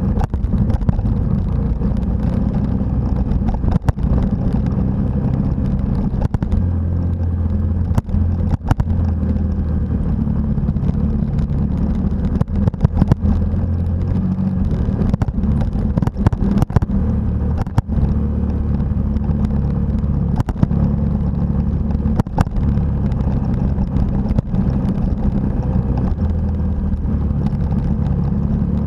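A motorcycle engine running at riding speed on a gravel road, its note changing a few times with the throttle, over wind rush and frequent short knocks and rattles from bumps in the road.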